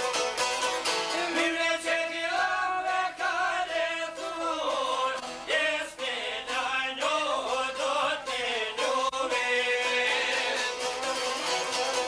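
Albanian folk song: a man sings a bending, ornamented melody to plucked çifteli and lute with a violin. The voice comes in about a second in and carries on until near the end.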